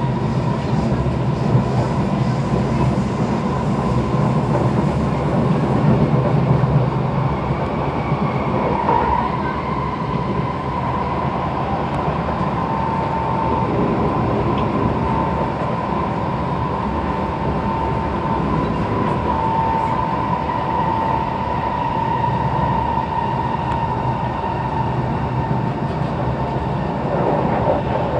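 Inside an SMRT C151 metro train car running at speed: steady wheel-on-rail rumble with a faint steady hum above it.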